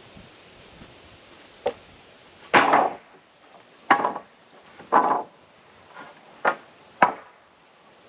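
Sawmill-cut wooden battens knocking and clattering as they are laid down on a stack of boards: about six knocks in five seconds, some of them short rattles of boards against each other.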